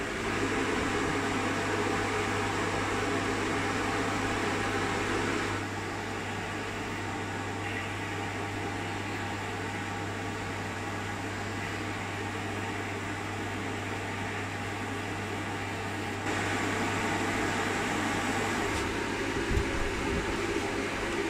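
Steady hum of an electric fan with a low mains buzz under it, dropping in level about five seconds in and rising again a few seconds before the end. A brief knock sounds near the end.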